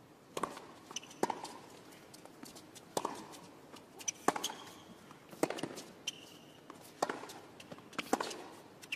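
Tennis rally on a hard court: a racket strikes the ball about every second and a half, with short high shoe squeaks between some of the strikes.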